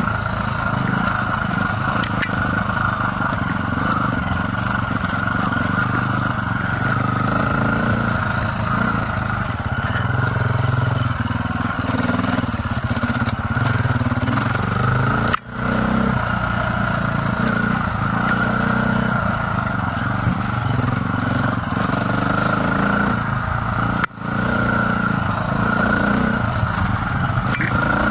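Dirt bike engine running steadily as the bike rides along a dirt singletrack trail, the pitch rising and falling a little with the throttle. The sound cuts out for an instant twice, about halfway through and again a few seconds before the end.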